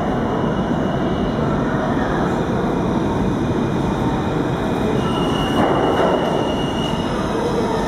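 New York City subway trains running through an underground station: a steady rumble and rush of steel wheels on rail as an R32 train pulls out into the tunnel and another train approaches. A thin wheel squeal sounds from about five seconds in for a couple of seconds.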